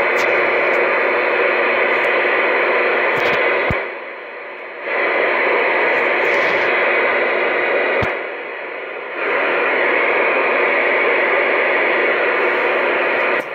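Magnum S9 radio on 27.285 MHz AM putting out loud, steady static hiss through its speaker. The hiss drops much quieter twice, for about a second each, about four and about eight and a half seconds in, then comes back.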